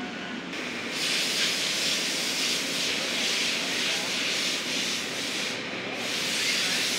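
A steady hiss of rushing air that comes in about half a second in and holds on, thinning briefly near the end.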